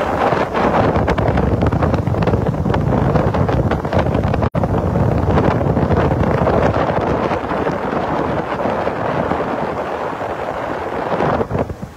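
Heavy wind buffeting the microphone aboard a moving boat, a loud, even rush mixed with the sound of the hull through the water. It drops out for an instant about four and a half seconds in and eases off near the end.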